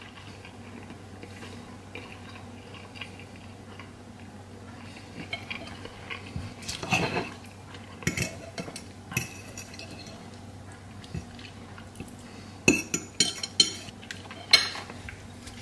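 Cutlery clinking against a plate as food is eaten: a few scattered clinks, then a quick run of sharp clinks near the end.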